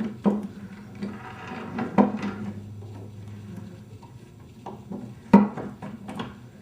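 Metal clanks and knocks as a steel C-clamp is handled and set against the potter's wheel frame under the motor, at the belt-tension adjusting screw. There are a few sharp knocks, the loudest about five seconds in, with softer scraping and rubbing between them.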